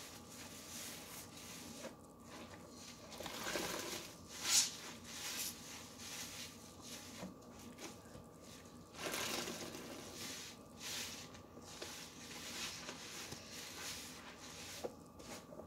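Wet, soapy sponges squeezed and scrubbed by hand in dish-soap suds: irregular wet squishing in uneven swells, loudest about four and a half seconds in and again about nine seconds in.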